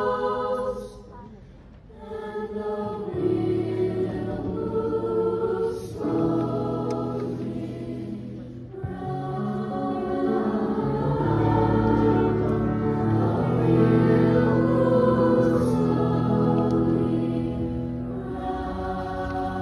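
Mixed choir singing with digital piano accompaniment, dropping briefly to a hush about a second in before the voices swell again.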